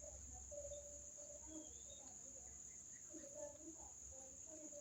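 Faint, steady, high-pitched continuous trill that does not break, which the uploader takes for a spider making sounds. Fainter short wavering sounds come and go underneath.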